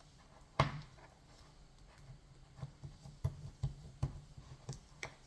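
Slime being pressed and packed into its plastic pot by hand: scattered soft clicks and taps, the loudest a little over half a second in and several more from about three to five seconds in.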